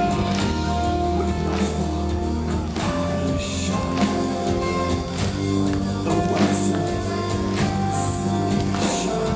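Melodic death metal band playing live: sustained guitar chords over drums, with cymbal hits cutting through.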